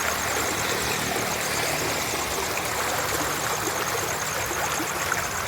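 Fast-flowing water rushing steadily through a small canal, an even rushing noise. A fast, high-pitched pulsing trill runs above it throughout.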